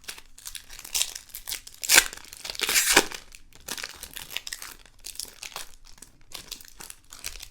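A trading card pack's wrapper torn open and crinkled, in a run of rustles that are loudest about two and three seconds in.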